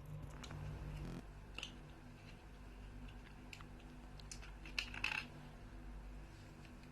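Faint eating noises: scattered small clicks and taps, with a short cluster of them about five seconds in, over a steady low hum.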